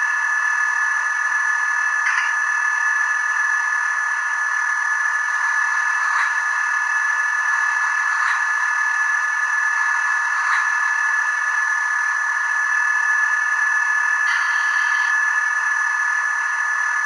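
An MRC sound decoder in an HO-scale NRE Genset model locomotive playing its diesel engine sound through a tiny onboard speaker: a steady, tinny drone with no low end, with faint short pops about every two seconds. About fourteen seconds in, a brief hiss joins for about a second.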